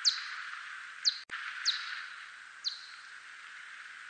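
Whiskered bat (Myotis) echolocation calls, brought down into hearing range: short, steep downward chirps, about one a second with uneven spacing, over a steady background hiss. A single brief click sounds just after one second in.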